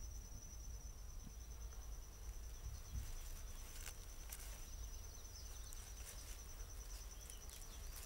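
Faint outdoor ambience dominated by an insect's steady, high-pitched pulsing trill, with a few soft ticks or rustles.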